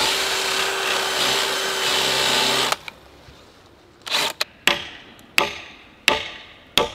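Cordless drill boring through a wooden fence brace, running steadily and stopping under three seconds in. Then about six sharp hammer blows, each with a short ring, driving the metal brace pin into the drilled hole.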